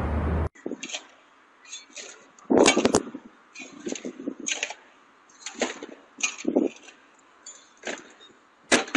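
A shovel scraping and digging into soil in irregular short strokes, the loudest about two and a half seconds in. It follows half a second of steady traffic noise that cuts off.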